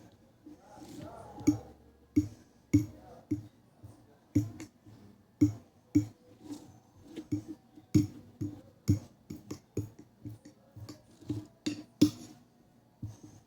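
Cutlery clinking and tapping against a plate while sweet potato is eaten, in irregular sharp taps roughly twice a second.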